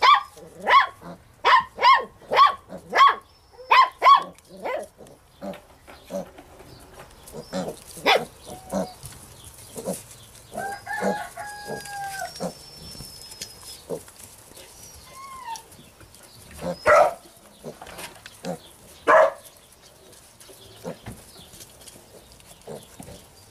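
A puppy yapping in a quick series of short barks for the first few seconds, then scattered single yelps. A rooster crows once in the background about eleven seconds in, a long held call that falls away at the end.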